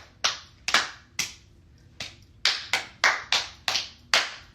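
Hand claps in a cheer rhythm: a few claps, a pause of about a second, then a quicker run of claps, several a second.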